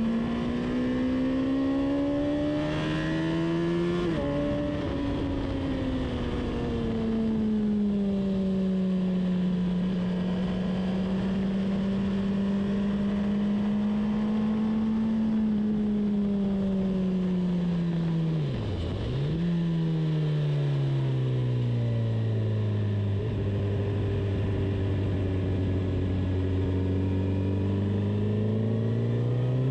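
Engine of a track-day vehicle heard on board while lapping a circuit. The revs climb, then drop suddenly about four seconds in at a gear change, and hold steady for a long stretch. The pitch dips sharply and recovers around nineteen seconds in, falls to a low steady note, and rises again near the end under acceleration.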